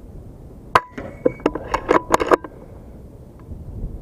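An FX Crown Continuum .25 PCP air rifle fires with a sharp crack about three quarters of a second in. It is followed by a quick run of sharp metallic clicks with a faint ringing note, which fits the side-lever action being cycled to chamber the next pellet.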